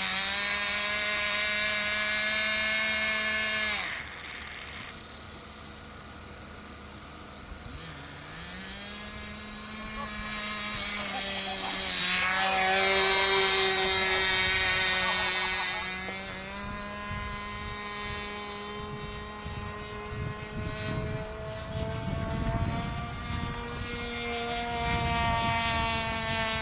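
Radio-controlled model airplane engine running at a high, steady pitch as the plane flies about. It gets quieter about four seconds in, is loudest around halfway as the plane passes close with its pitch sliding down, then fades and comes back. Low rumbling joins near the end.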